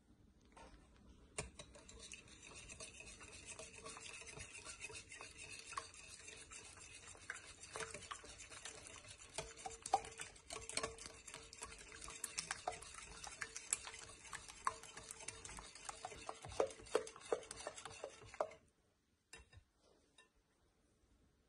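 Metal wire balloon whisk beating eggs and sugar in a glass bowl: a fast, steady scraping of wires against the glass with many sharp clicks. It stops abruptly about three seconds before the end, leaving only a few faint ticks.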